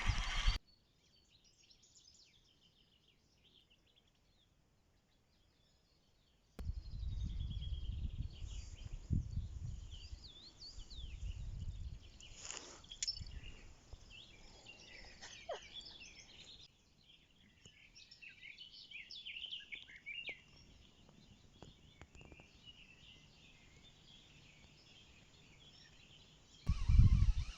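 About six seconds of near silence, then songbirds singing and chirping: many short high whistles and trills, some gliding in pitch. A low rumble, like wind or handling on the microphone, runs under the birdsong for its first few seconds.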